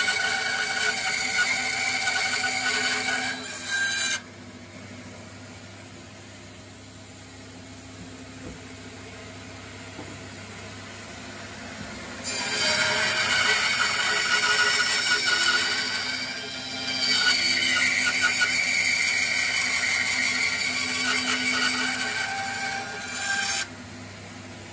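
Bandsaw cutting timber lengthways down the middle, a loud whine made of several steady pitches, in two cuts: the first stops about four seconds in, and the second starts about twelve seconds in and cuts off shortly before the end. Between the cuts a quieter steady hum continues.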